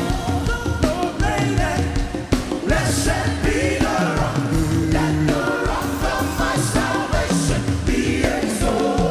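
Live gospel worship music: a band with bass and drums playing under singing voices.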